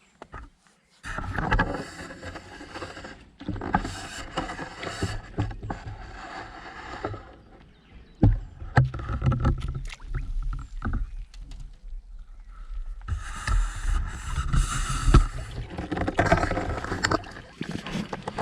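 Water splashing and sloshing, with irregular knocks and rustles of handling close to the microphone.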